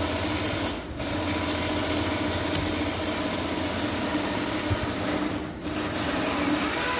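A power tool running on a special-tool socket to undo the nut on the MDPS steering column, a steady whirring hum in three runs with brief breaks about a second in and again about five and a half seconds in.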